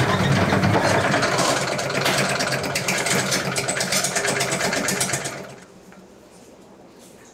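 Industrial centrifugal spin dryer running, its basket whirling a load of mock drumsticks: a steady motor hum with fast rattling. The sound drops away sharply about five and a half seconds in.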